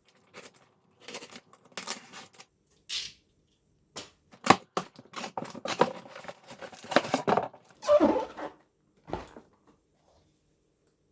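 Unboxing a pair of sneakers: paper packaging rustles, crinkles and tears in irregular bursts, with scattered taps and clicks. The loudest bursts come about halfway through and again a little later.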